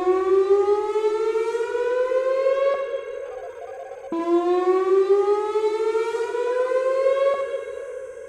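Whelen WPS-2910 electronic warning siren sounding its whoop tone during a dam-failure warning test. Each whoop rises steadily in pitch for about three seconds, then cuts off with a pause of about a second before the next one begins.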